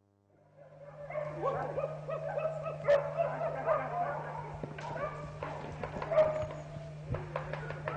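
Hunting hounds baying on the chase, fading in about half a second in, the calls overlapping and bending in pitch. Loud hound baying of this kind is the hunter's sign that the dogs have found game and are driving it.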